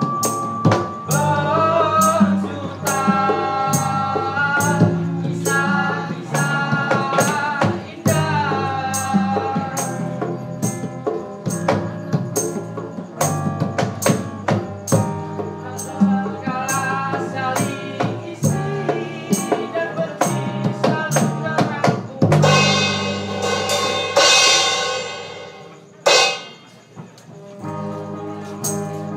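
Live music with a steady percussion beat under a melody line. A loud, noisy swell comes about 22 seconds in, and a sharp stroke follows shortly after.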